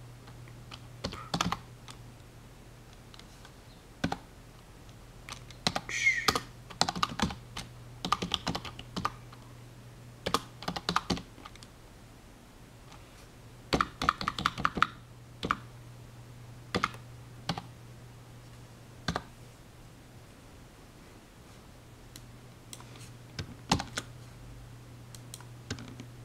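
Typing on a computer keyboard: irregular bursts of key clicks with short pauses between them, over a steady low hum.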